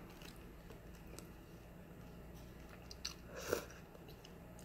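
Close-up eating sounds of a person eating misua noodle soup from a plastic spoon: faint chewing and small mouth clicks, with a louder slurp off the spoon about three and a half seconds in.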